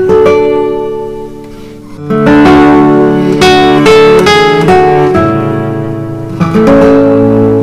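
Background music led by a plucked guitar, with notes swelling up again about two seconds in.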